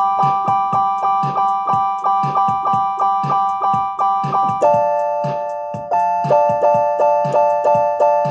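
Electronic home keyboard playing held chords over its built-in drum rhythm, a steady beat of short hits; the chord changes about halfway through and again a second or so later.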